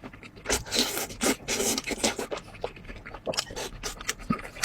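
Several rough scraping sounds in the first two seconds, then scattered light clicks and taps.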